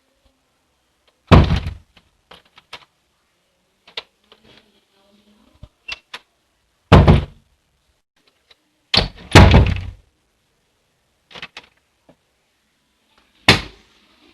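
A door being opened and shut again and again: four loud thuds as it closes, one of them a quick double hit, with fainter latch and handle clicks in between.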